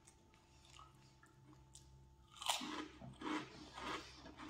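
A crunchy snack chip bitten into about two and a half seconds in, then chewed with repeated crisp crunches, about two a second.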